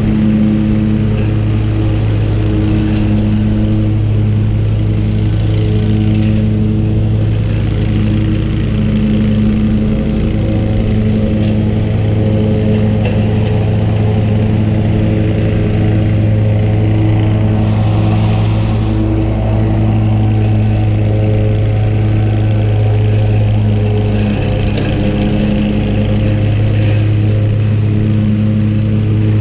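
Engine running steadily at one speed: an even hum with a constant pitch that barely changes throughout.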